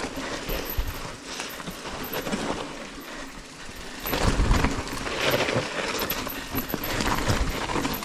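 Electric mountain bike being ridden down a rough dirt trail: tyres rolling over dirt and roots with the frame and parts rattling and knocking, and wind on the microphone. It gets louder and rougher about halfway through.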